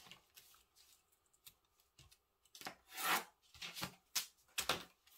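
Pattern paper being handled: several short rustling, rubbing strokes of kraft paper shifting on the table, the loudest about three seconds in.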